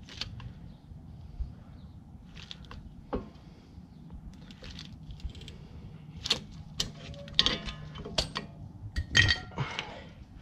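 Scattered light metallic clinks and rattles of brake tools and parts being handled, busier in the second half, with a couple of brief ringing clinks.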